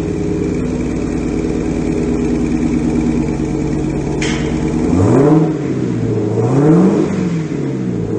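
2021 Jeep Trackhawk's supercharged 6.2-litre V8 idling through a Corsa cat-back exhaust, then revved twice, about five seconds in and again about a second and a half later, each rev climbing and dropping back to idle.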